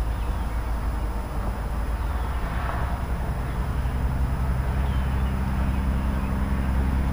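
Steady low drone of a distant motor over a low rumble, the hum growing stronger about four seconds in.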